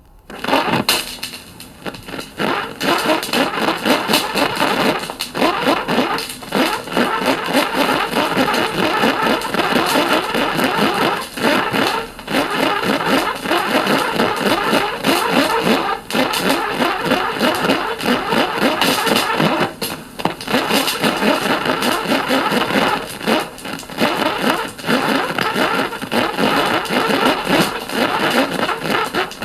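A motor engine starting and then running hard with revving, its fast firing pulses dipping briefly every few seconds.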